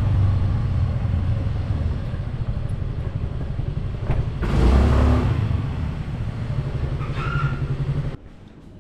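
Motor vehicle running on the road, a steady low engine hum with road noise that swells louder about halfway through, then cuts off suddenly near the end.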